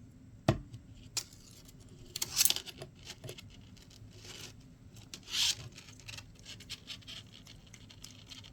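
Hands working small RC-truck axle parts and tools on a workbench: a sharp knock about half a second in, then scattered small clicks and a couple of short scraping, rustling noises.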